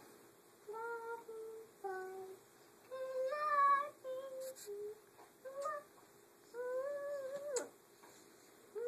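A small child's high voice singing a lullaby in short phrases of held notes with pauses between them.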